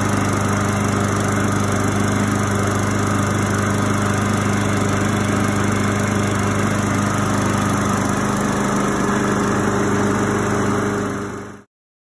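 Brute walk-behind lawn mower's small engine running at a steady speed. The sound cuts off abruptly near the end.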